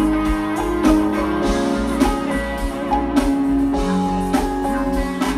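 Live pop-rock band music without vocals: held guitar notes over a steady drum beat, the drum hits falling about once a second.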